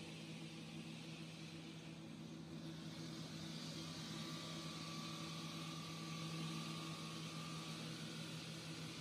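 Large diamond-segment circular saw blade of a stone-cutting machine running through a stone block under water spray: a steady motor hum under a grinding hiss. The hiss grows a little about three or four seconds in, with a faint high whine over it.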